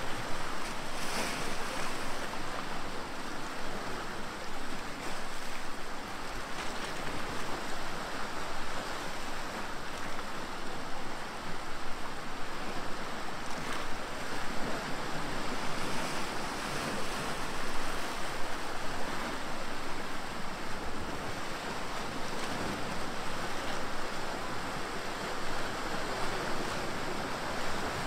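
Small sea waves washing and splashing against shoreline rocks: a steady, unbroken rush of surf.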